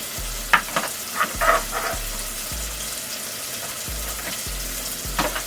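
Food sizzling steadily in a frying pan, with a few brief clatters of a utensil between about half a second and two seconds in.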